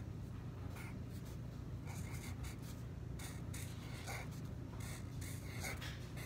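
Black marker pen writing letters in a series of short scratchy strokes, a few with a brief squeak, over a steady low hum.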